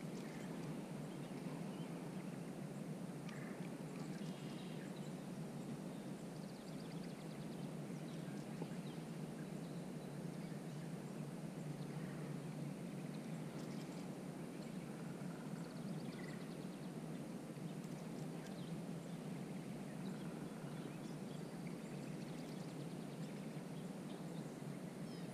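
Steady, quiet outdoor background rush with faint, scattered short high chirps.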